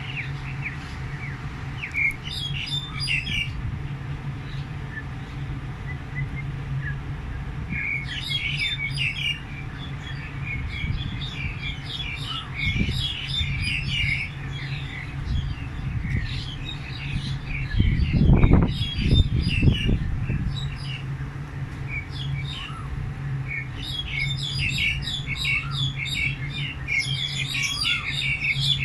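Small birds chirping and twittering in busy clusters of short high calls, over a steady low hum. A low rumble about two-thirds of the way through is the loudest sound.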